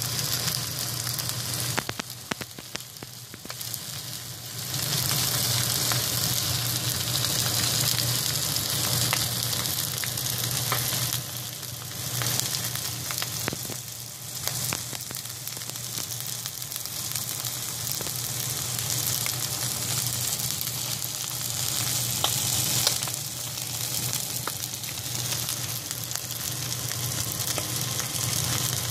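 Fish fillets frying in oil on a non-stick frying pan liner: a steady hiss with scattered pops and crackles, growing louder in stretches.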